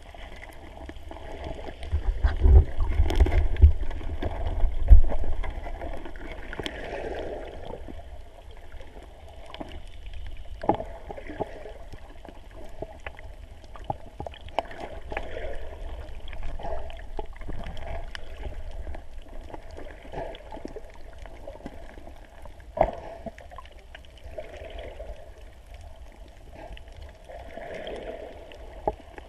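Muffled underwater sound heard through a GoPro's waterproof housing: water sloshing and gurgling, with a loud low rumbling about two to five seconds in and a few sharp clicks and knocks scattered through.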